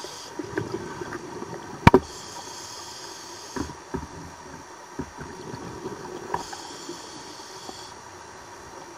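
A scuba diver breathing through a regulator underwater: twice a steady hiss of inhalation, alternating with a gurgling rush of exhaled bubbles. A single sharp knock about two seconds in.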